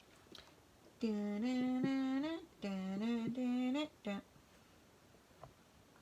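A person humming a short tune in two phrases of held notes, starting about a second in and stopping about four seconds in.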